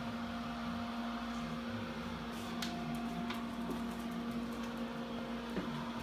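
Monster Energy commercial display fridge (model CTM-026-3E) running, its cooling unit giving a steady hum with a clear low tone. A few faint clicks come in the middle.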